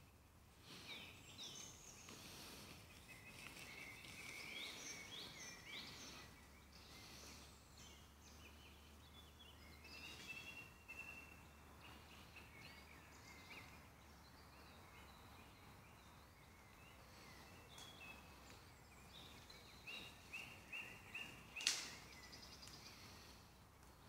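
Faint woodland birdsong: several small birds singing high chirping and trilling phrases, with a quick run of short repeated notes near the end. A single sharp click cuts in shortly before the end.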